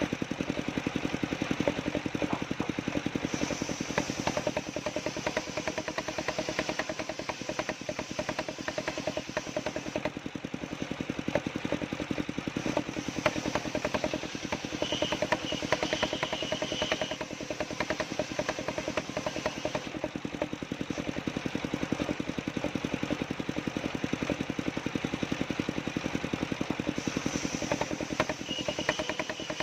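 Engine of a homemade wood-cutting sawmill running steadily with a rapid chugging pulse, with a short high whine about halfway through and again near the end.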